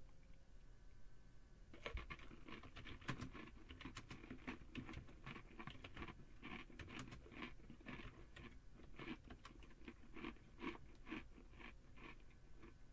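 Faint typing on a computer keyboard: quick, irregular keystroke clicks that start about two seconds in and carry on in uneven runs.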